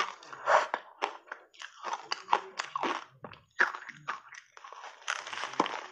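A block of ice caked in thick dry matcha powder bitten and chewed in big bites: an irregular run of sharp crunches and crackles, several a second, with the loudest bites around half a second in and near the two-second mark.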